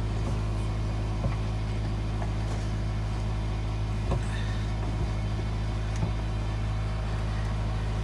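Vehicle engine running steadily, a low even hum, with a few faint clicks.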